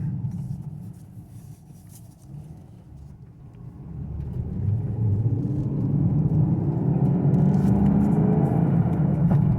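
Chevrolet Camaro SS's 6.2-litre V8 running quietly, then swelling and rising in pitch from about four seconds in as the car accelerates away, heard from inside the cabin.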